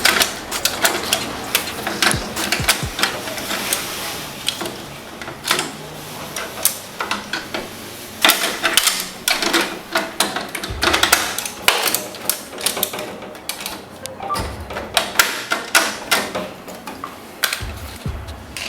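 Irregular clicks, taps and knocks of plastic and metal photocopier parts being handled and fitted back together, with connectors being plugged back in.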